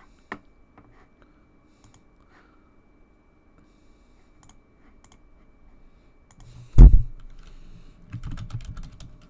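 Typing on a computer keyboard: a quick run of keystrokes near the end. Before it comes a single loud thump, the loudest sound here, and a lone click just after the start.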